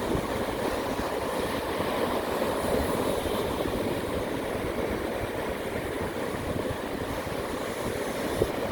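Sea surf breaking on a beach, a steady rush of water, with wind rumbling on the microphone.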